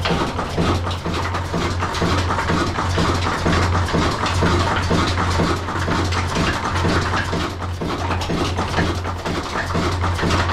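Old Ruston horizontal single-cylinder diesel engine running at a steady speed, its slow firing beat thudding evenly in a small brick room.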